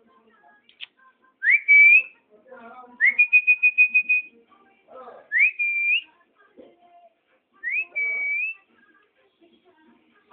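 A person whistling four short phrases, each a quick upward swoop into a held high note. The second held note warbles rapidly.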